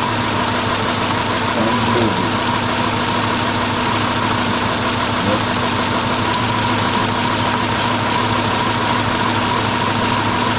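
Subaru 2.2-litre flat-four engine idling steadily with a misfire, during a cylinder-by-cylinder plug-wire test to find the dead cylinder.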